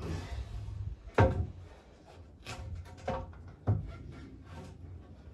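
Round wooden poles knocking and scraping against the wooden roof beams as they are shifted into place: a sliding scrape at first, then several sharp knocks, the loudest about a second in.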